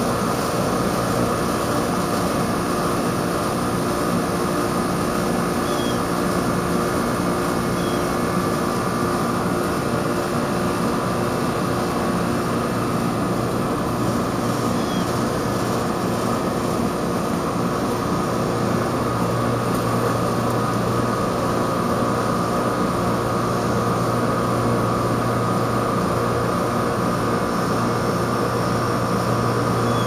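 York package air conditioner running in cooling mode, its Copeland scroll compressor giving a steady hum that does not change, with a hard start kit fitted to the compressor.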